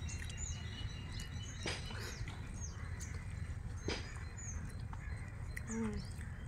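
Birds giving short high chirps now and then, over a steady low outdoor rumble, with a few sharp clicks.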